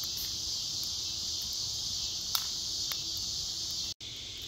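Chorus of insects, such as crickets or cicadas, making a steady high-pitched drone, with a couple of faint ticks about two and a half and three seconds in.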